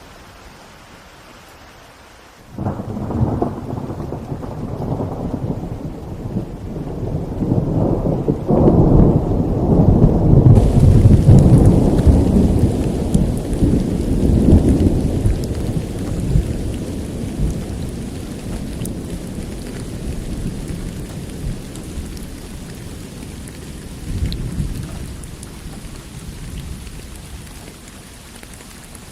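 Rain falling during a thunderstorm, with a long roll of thunder that breaks in suddenly a couple of seconds in, rumbles louder to a peak about ten seconds later and slowly dies away. A brighter hiss of rain comes in abruptly near the middle.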